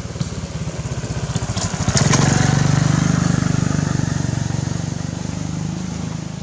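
Small motorcycle engine running close by, getting louder about two seconds in and then slowly fading.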